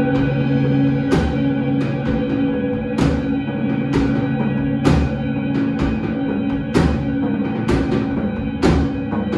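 Rock band playing live with electric guitars, baritone bass and drum kit. The guitars and bass hold a sustained drone, and cymbal crashes and heavy drum hits land roughly once a second.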